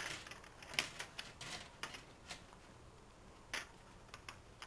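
Lengths of metal wire clicking and scraping against each other and the tabletop as they are gathered by hand, a string of irregular light clicks with the sharpest about a second in.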